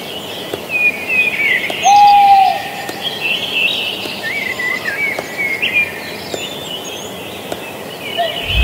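Several birds chirping and warbling over a steady background hiss. A single clear whistled note about two seconds in is the loudest sound. A sudden whoosh comes right at the end.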